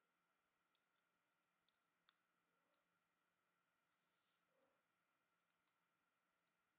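Faint, scattered clicks and a brief scrape: small metal parts of a Spyderco Lil Native folding knife being handled and fitted during disassembly and reassembly. The sharpest click comes about two seconds in.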